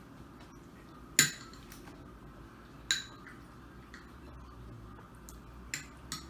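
A metal eating utensil clinking against a dish. Two sharp clinks with a brief ring, the first about a second in and the louder, then a few lighter taps near the end.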